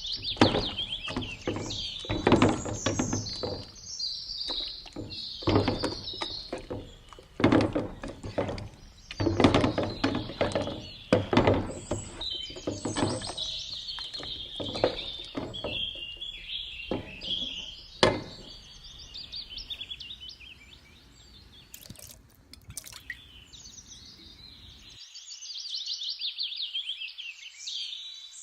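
Small birds chirping and twittering throughout, over a series of irregular knocks and clatters for most of the first two-thirds. The knocking stops about eighteen seconds in, leaving the birdsong alone.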